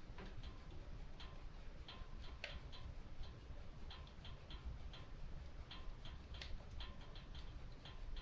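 Wood fire crackling in a stone fireplace: irregular sharp pops and snaps, several a second, over a low steady rumble.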